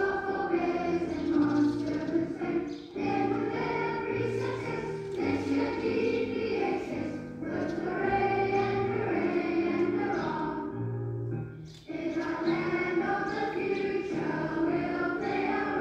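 A choir of young voices sings a song over held low bass notes. The voices break off briefly about 11 seconds in, then come in again.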